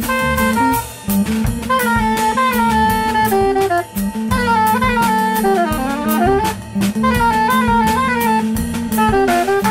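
Saxophone playing a melodic solo line in phrases, with bending and sliding notes, over a drum kit with cymbals, electric bass and guitar: a small jazz band playing live.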